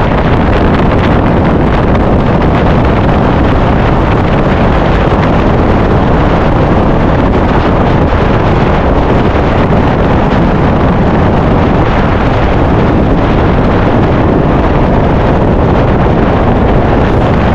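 Steady, loud wind buffeting on the microphone, a dense rumbling hiss with no break.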